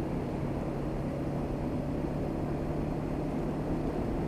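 Honda CB500X's parallel-twin engine running at a steady pace while the motorcycle is ridden, with wind and road noise.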